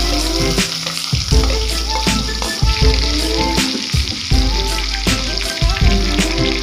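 Food sizzling in a hot pan, a steady hiss that stops at the end, over background music with a deep bass and a steady beat.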